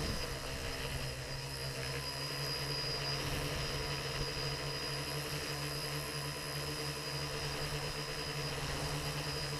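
Motor and propeller of a radio-controlled model aircraft running steadily in flight, heard from the camera on board: a steady drone with a thin high whine above it.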